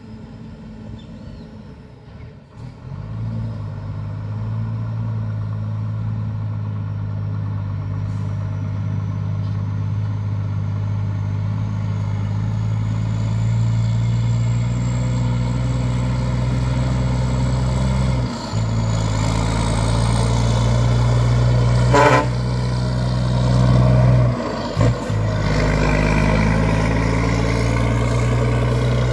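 Iveco semi-truck's diesel engine through a straight-through exhaust, pulling away fully loaded with a deep, steady note that grows louder as it approaches. The note drops out briefly twice at gear changes, and a short sharp hiss of air comes about two-thirds of the way through.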